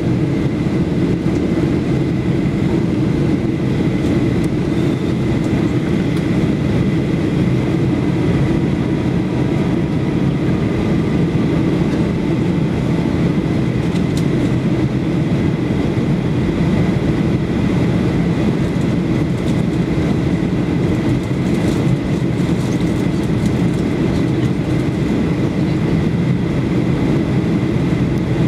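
Steady cabin noise of a Boeing 737-8200 on descent: an even roar of engines and rushing air, with a faint steady high tone running through it.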